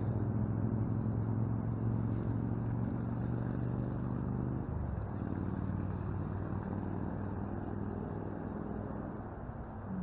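Steady low engine hum with a noise haze beneath it. The hum changes and weakens about halfway through.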